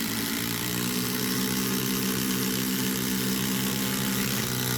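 Cordless impact drivers, a Milwaukee Fuel and a DeWalt XR, hammering steadily as they drive fasteners in a speed race, a continuous buzzing drone; the pitch shifts about four and a half seconds in.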